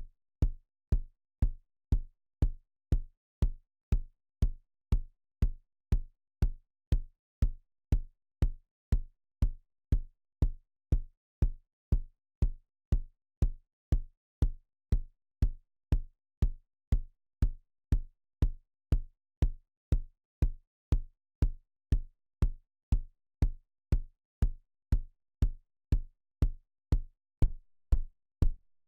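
Synthesized kick drum from Reason's Subtractor synthesizer, repeating evenly at about two hits a second, each a short deep thump that dies away quickly. Near the end the hits get slightly louder with a short tail after each.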